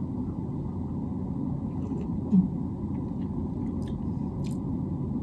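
A person sipping hot coffee from a ceramic mug, with small sip and mouth sounds and one brief louder low sound about halfway through, over a steady low room hum.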